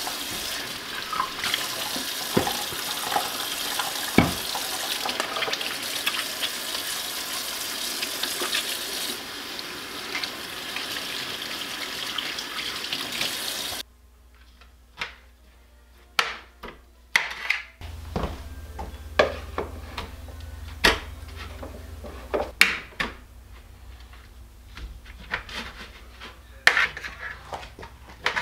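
Tap water running steadily into a stainless steel sink, with a few clinks. About fourteen seconds in it cuts off suddenly and gives way to a knife cutting a ham on a plate: a string of sharp, separate taps and clicks of the blade and pieces on the plate.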